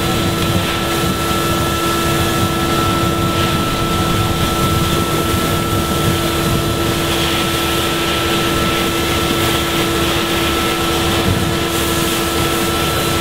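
Fire engine's pump running with a steady engine drone and a constant whine, under the rushing hiss of a hose jet spraying a burning car.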